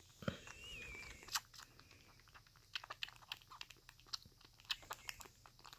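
Kitten sucking hard on a nursing bottle, making wet, irregular clicking slurps several times a second. A low bump and a brief wavering high squeak come near the start.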